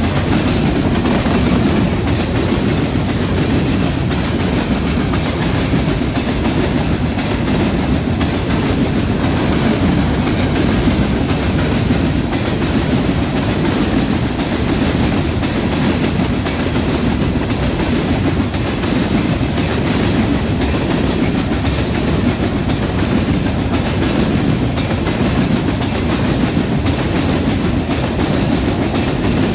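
Covered hopper cars of a long freight train rolling past close by: a steady, loud rumble of steel wheels on rail with clacking from the wheels over the track.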